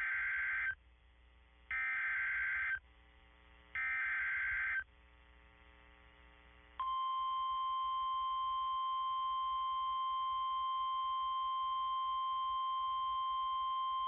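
NOAA Weather Radio Specific Area Message Encoding (SAME) alert opening a severe thunderstorm warning: three one-second bursts of SAME header data tones with short pauses of faint hiss between them. About seven seconds in, the steady 1050 Hz warning alarm tone starts and holds for about nine seconds.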